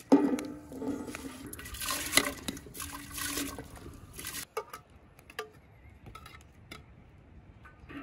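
A metal skimmer clinks against an enamel bowl, leaving a ringing tone that fades over about three seconds, while parboiled rice is scraped and tipped from the bowl into a large metal cooking pot with a wet-sounding hiss. A few light knocks follow near the middle.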